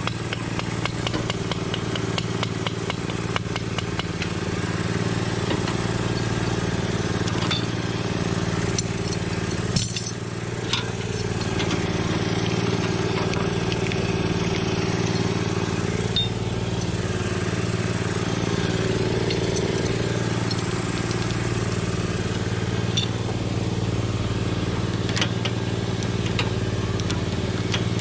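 A motor running steadily, with a few sharp metallic clinks, while a chain pulls on the frame.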